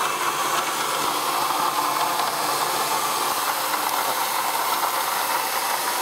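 2004 Ford Taurus engine idling with the hood open, a steady, noisy running sound with a grinding that the owner thinks comes from an accessory pulley, possibly the air conditioning compressor.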